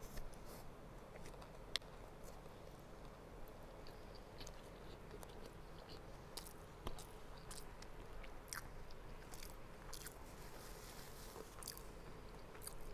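A person chewing a mouthful of rice and chicken, with faint scattered mouth clicks and smacks and a few sharper clicks.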